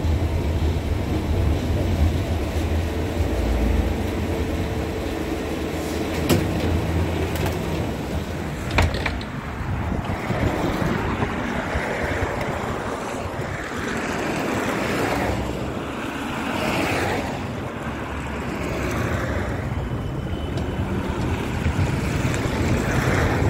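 71-631-02.02 low-floor tram running: a steady low rumble of its wheels and running gear from inside the car, broken by a sharp click about nine seconds in. After that comes a lighter rumble that swells and fades, the tram and road traffic heard from beside the track.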